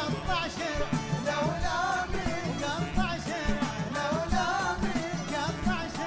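A man singing a Gulf Arabic song live with a band, his voice holding long, wavering ornamented phrases over a steady percussion beat.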